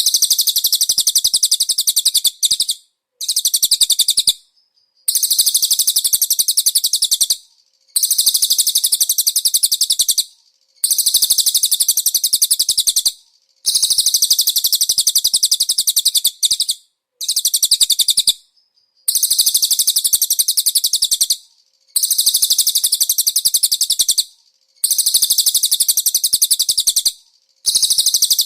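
A cililin songbird singing: very fast, high-pitched rattling trills in bursts of about two to three seconds, each followed by a short pause, over and over.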